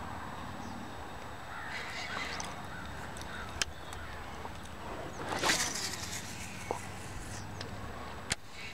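Outdoor bird calls, including harsh caw-like calls, over a steady background. A brief noisy swish comes about halfway through, and there are a few sharp clicks.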